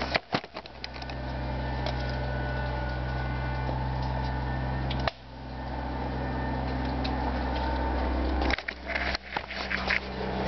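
Steady low mechanical hum, with a few knocks near the start and a cluster of knocks and rattles near the end.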